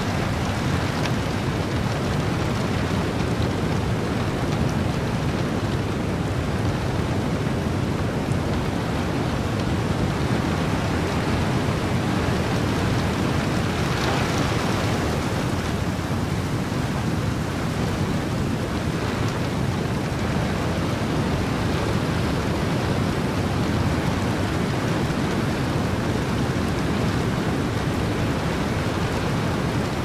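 Steady rain mixed with ocean surf and wind, an even, dense rush heavy in the low end, with a brief swell about halfway through.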